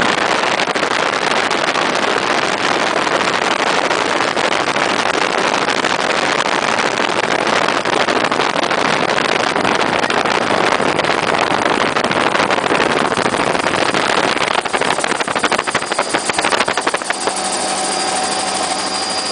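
Helicopter in flight: a loud, steady rushing noise. Near the end a rapid chop of rotor beats comes through, followed by steady whining tones.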